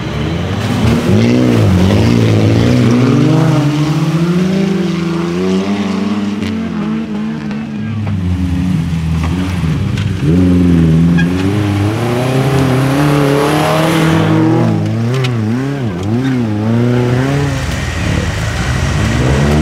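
4x4 SUV engine revving hard under load in mud, its pitch climbing and dropping again and again. Toward the end the revs flick up and down several times a second, as the wheels spin and bite.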